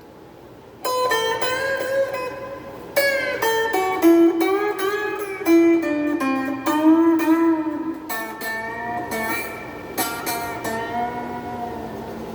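Electric guitar, a Donner DST-80 strat-style kit guitar, played through its small included practice amp: a single-note lead line with string bends and vibrato, starting after a brief pause about a second in.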